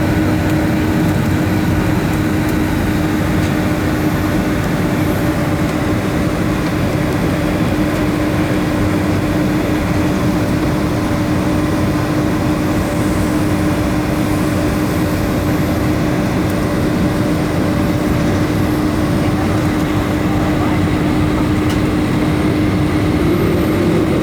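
Boeing 757-200's jet engines running, heard inside the passenger cabin as a steady rumble with a constant hum.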